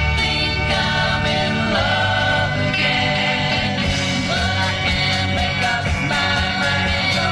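1960s British beat-pop band recording, with singing over a steady beat.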